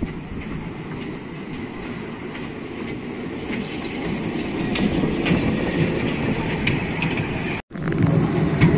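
Children's amusement-park train running on its small-gauge track, wheels clicking over the rail joints. It grows louder as it passes close by. After a brief dropout near the end, the sound is heard from on board and is louder.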